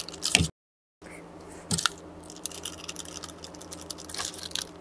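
Quick, sharp clicks of the MSI GM41 Lightweight Wireless mouse's buttons being pressed over and over to test its newly fitted Huano blue-shell blue-dot switches. The sound cuts out completely for about half a second near the start.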